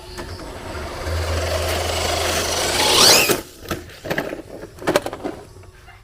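Small RC crawler running, with a rasping, scraping noise that builds to a rising whine about three seconds in, then a series of separate knocks and clacks that fade away.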